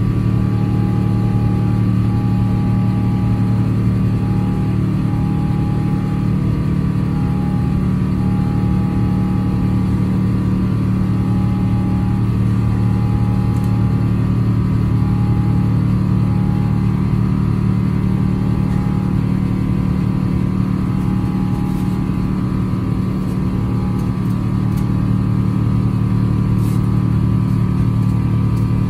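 Steady cabin roar of an Airbus A350-900 in its initial climb after takeoff: its Rolls-Royce Trent XWB engines at climb power and the airflow over the fuselage, heard inside the cabin. A faint tone sits under the roar, breaking off and coming back every second or so.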